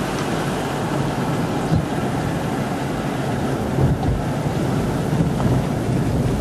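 Strong wind buffeting the microphone: a steady, gusty rumble.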